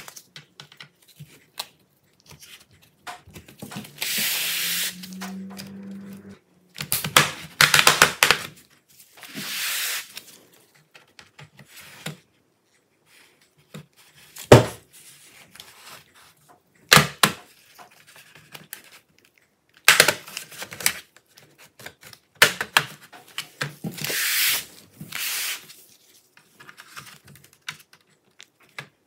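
Plastic opening pick scraping along the seam of an Acer Nitro V 17 AI laptop's plastic bottom cover, broken by sharp clicks as the cover's clips snap free. There are several scraping runs of a second or two, and the loudest snap comes about halfway through.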